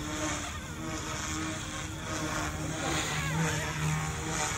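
Goosky S2 Legend mini RC helicopter hovering and manoeuvring, its electric motor and rotor blades whirring with a steady low drone that swells and fades as it moves. Its throttle curve is turned down to 65%, so the rotor runs at reduced head speed. Distant voices call out in the background.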